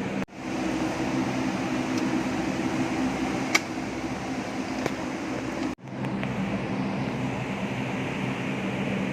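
A steady mechanical hum, broken off abruptly twice, with a single sharp click about a third of the way in.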